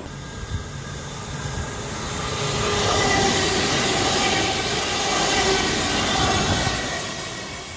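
Queensland Rail electric multiple-unit train passing close by on the rails. The rushing of wheels on track swells to a peak in the middle and eases off near the end, with a steady whine over it while it is loudest.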